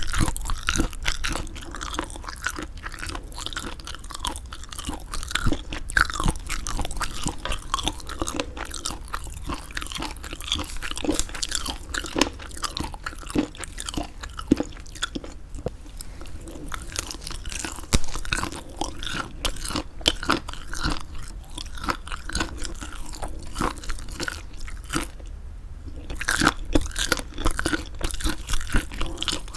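Close-miked mouth sounds of chewing semi-dried squid: a dense run of moist, crackling chews and bites, with a brief pause about twenty-five seconds in.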